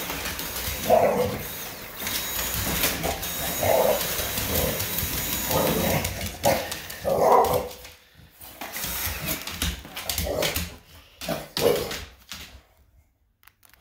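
English bulldog barking at a cordless stick vacuum, about half a dozen separate barks spread over several seconds. The vacuum's motor hisses steadily underneath and drops away about halfway through.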